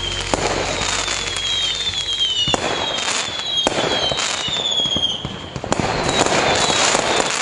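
Fireworks going off overhead: sharp bangs every second or two over steady crackling, with several high whistles sliding down in pitch.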